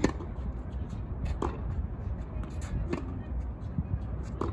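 Tennis rally: rackets striking the ball in sharp pops about every second and a half, with lighter ball bounces between the hits, over a steady low rumble.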